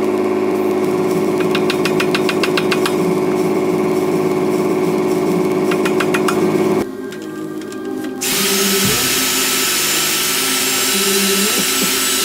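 Power tool running steadily, cutting off abruptly about seven seconds in; after a short lull, a hissier steady tool sound starts and runs on.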